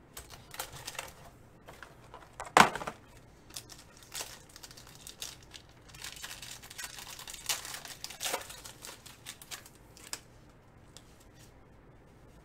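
Foil trading-card pack wrapper crinkling and tearing as it is ripped open, thickest around the middle, with scattered small clicks and one sharp snap about two and a half seconds in.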